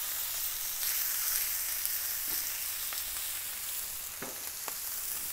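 Ribeye steaks sizzling steadily as they sear on the hot side of a Blackstone flat-top griddle, with a few faint clicks in the second half.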